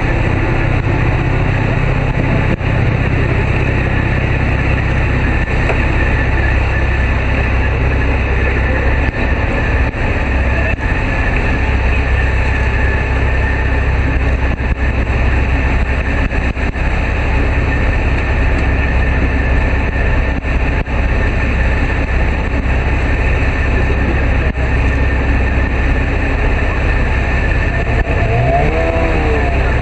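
Tamar-class lifeboat's twin diesel engines running steadily underway, with wash and wind rushing over the open stern deck. Near the end a tone rises and falls several times over it.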